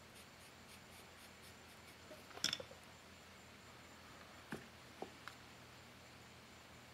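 Near-silent handling of a steel exhaust header flange and its paper template: a short cluster of light taps and clicks about two and a half seconds in, then three single faint ticks around five seconds.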